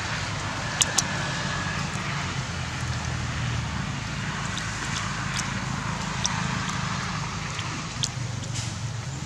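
A steady low motor rumble under an even hiss, with a few sharp clicks.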